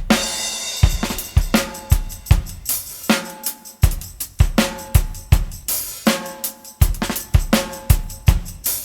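Upbeat reggae instrumental music: a drum kit with kick, snare, hi-hat and cymbals keeping a steady beat under bass and pitched instruments.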